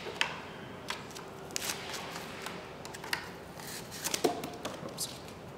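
Foam packing insert being pushed out of a small 3D printer by hand: irregular scrapes, rustles and light clicks, a few sharper ones about a second and four seconds in.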